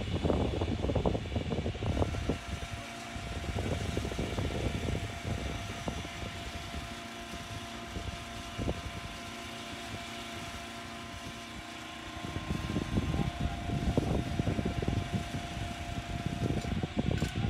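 Machinery engine running steadily at a working wharf, with a thin steady whine over it and heavier low rumbling in the first couple of seconds and again through the last few seconds.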